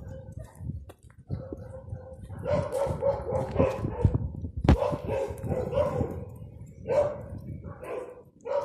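Yard guard dogs barking repeatedly in clusters of short barks, with a sharp click about halfway through.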